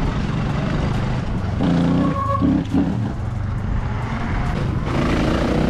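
Steady rumble of wind and tyres while riding an e-bike at speed, with a dirt bike's engine ahead revving up about two seconds in and again near the end.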